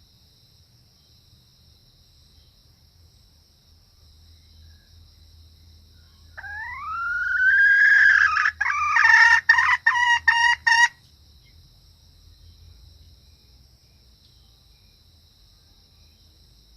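A junglefowl hen's call: a long rising note begins about six seconds in, then breaks into a run of about seven short choppy notes and stops abruptly near eleven seconds. Crickets trill steadily throughout.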